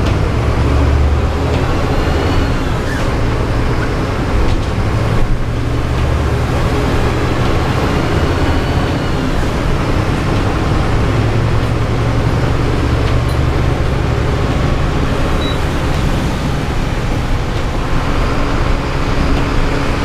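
Mercedes-Benz city bus heard from the driver's seat while driving: a steady low engine drone with the hiss of tyres and heavy rain on a wet road.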